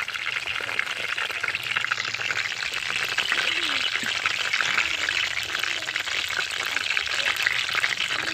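Chicken heads frying in hot oil: a dense, steady sizzle full of fine crackles.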